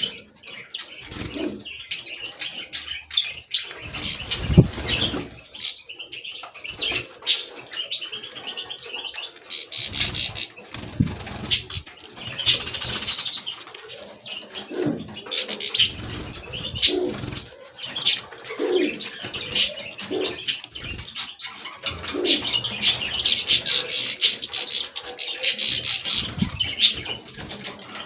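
Many small songbirds chirping and twittering at once, with pigeons cooing and wings flapping now and then.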